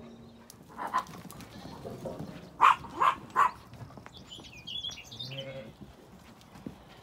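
A dog barking three quick times, with birds chirping and a sheep bleating near the end, among ewes and lambs at a feeding trough.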